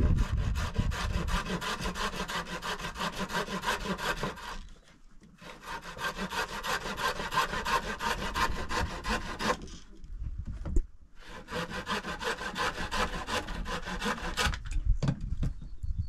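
Hand saw cutting through wood in rapid, regular back-and-forth strokes, in three long bouts with short pauses between them, then a few scattered knocks near the end.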